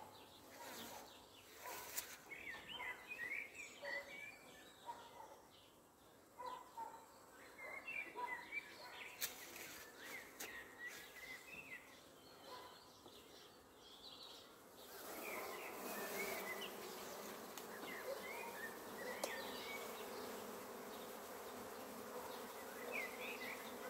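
A swarm of honeybees buzzing close by. The hum grows denser and holds steady from about fifteen seconds in, and there are a couple of light clicks earlier.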